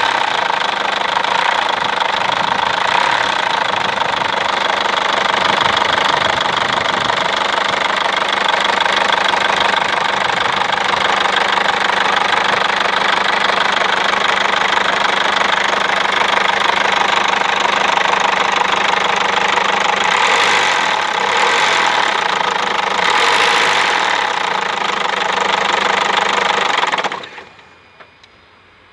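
Peugeot 307 1.6 HDi four-cylinder turbodiesel engine running and making a lot of noise, swelling twice about two-thirds through, then cutting off near the end. The noise began after a used cylinder head was fitted along with a new timing belt and water pump, and the car also lacks power in first and second gear.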